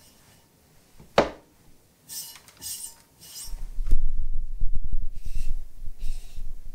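Hands handling a leather-hard clay cup at a stopped pottery wheel. A sharp knock comes about a second in, then a few short brushing scrapes. From just past halfway there is a run of low rubbing and crackling handling noise as the cup is lifted off and turned in the fingers.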